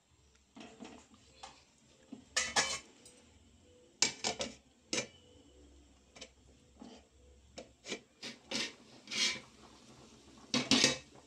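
Aluminium cooking pot handled on a gas stove and covered with a metal plate as a lid: a string of short metal clanks and scrapes, with the lid lifted off again near the end.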